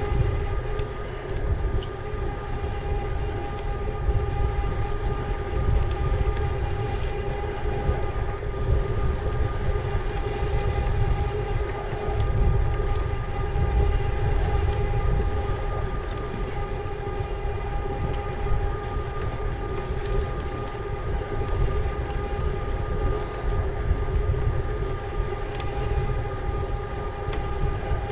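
Electric bike's motor whining at a steady pitch while riding at constant speed, over a low rumble of wind on the microphone.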